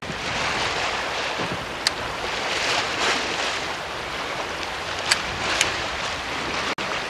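Sea surf washing against shore rocks with wind on the microphone, a steady noise. A few short sharp ticks stand out, once about two seconds in and twice around five seconds in.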